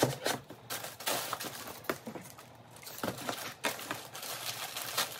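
Packaging being handled: a cardboard box opened, with paper rustling and crinkling and irregular light taps and clicks.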